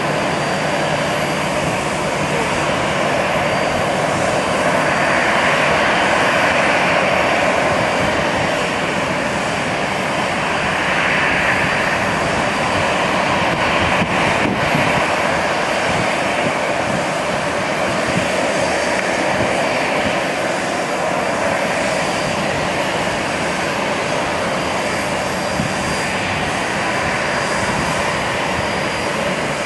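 Jet engines of a Boeing 747 on final approach and landing: a steady rushing engine hum that swells slightly a couple of times, with a faint thin high whine above it.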